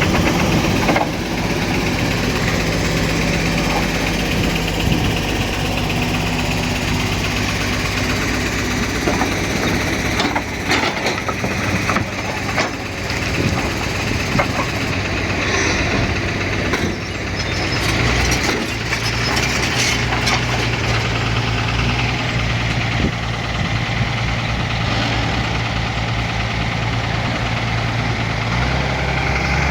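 Excavator diesel engine running steadily while it digs and loads a truck, its note changing about two-thirds of the way through. Several sharp knocks and clatters come in the middle, typical of the bucket and material striking.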